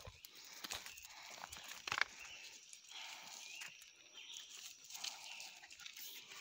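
Footsteps crunching and clattering through dry leaf litter and loose stones, with a sharp click about two seconds in.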